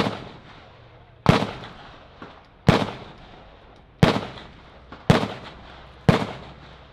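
AR-15-style rifle shots fired at a steady pace, about six shots a little over a second apart, each with a short echo trailing off.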